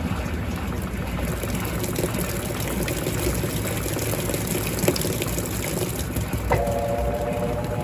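Electrolux LTC15 washing machine with water churning and trickling inside the tub. Near the end its motor starts humming again after a click.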